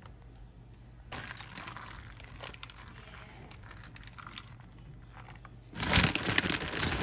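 Plastic bag of shredded cheese crinkling as it is handled. There is lighter rustling about a second in, then a louder burst of crinkling for about a second near the end.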